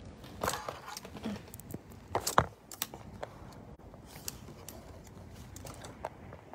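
Handling noise of a phone being set up and propped to record: scattered clicks, taps and knocks as it is gripped and placed on the table, the loudest knock about two and a half seconds in.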